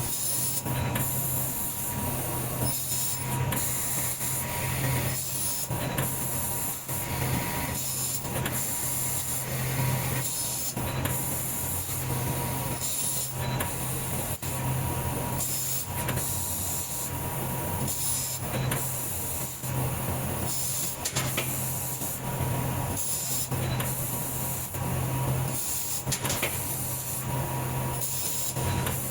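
3 kW fiber laser cutting machine cutting thick steel plate: a steady hiss of cutting and assist gas over a low machine hum, with a faint steady tone and brief short breaks now and then.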